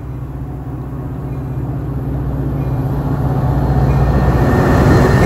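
Metra diesel passenger locomotive approaching and passing close by, its engine hum growing steadily louder to a peak about five seconds in as it draws level.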